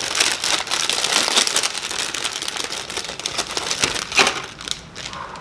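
Thin plastic bags holding Gunpla model-kit runners being crinkled and pulled open by hand: a continuous crackle of small plastic clicks that eases off near the end.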